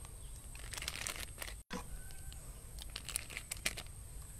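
Thin plastic bag crinkling in the hands as a spoonful of mixture is put into it, with scattered faint ticks. The sound cuts out for an instant about a second and a half in.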